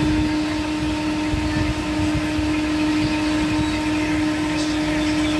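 A steady machine hum: one constant low tone held over a low rumble, without change.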